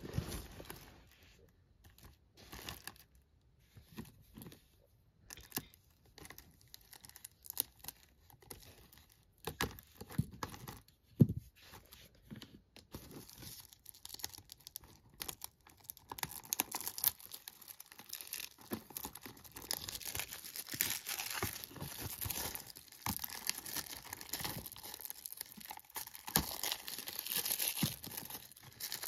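Plastic shrink wrap being torn and peeled off a Blu-ray case, crinkling. The first half holds scattered crackles and clicks; from about halfway the crinkling becomes continuous and louder.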